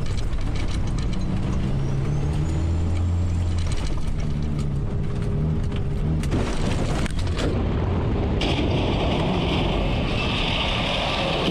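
Semi truck's diesel engine running, heard from inside the cab. A steady hiss joins in over the last few seconds.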